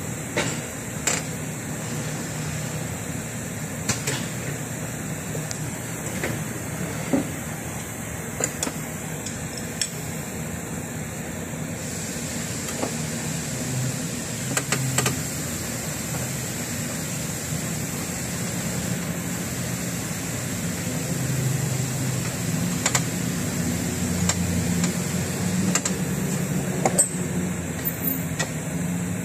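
Mitsubishi L200 diesel engine idling, a steady low running sound with a few sharp clicks scattered through it. The engine is misfiring, which the mechanic puts down to cylinder 3.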